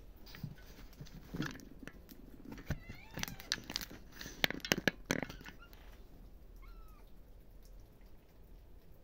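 Kittens meowing while feeding: a wavering meow about three seconds in and a short mew near seven seconds. Between them comes a flurry of sharp clicks and knocks, loudest around four to five seconds in.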